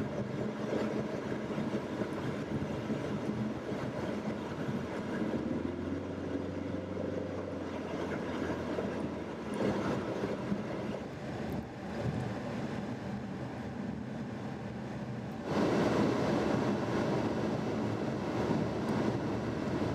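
In-cabin driving noise of a 2015 Ford Mustang EcoBoost with the windows up and the air conditioning running: steady road and tyre noise over the 2.3-litre turbocharged four-cylinder's low hum. The engine hum strengthens for a few seconds about a third of the way in, and the road noise steps up suddenly about three-quarters of the way through.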